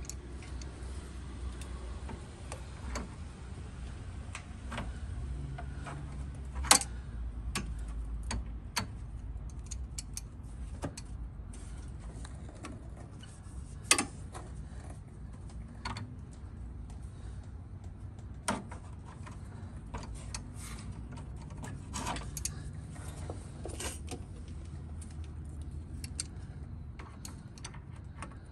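Scattered clicks and light taps of pliers and fingers working the radiator drain petcock as it is tightened, with a few sharper clicks among them, over a steady low hum.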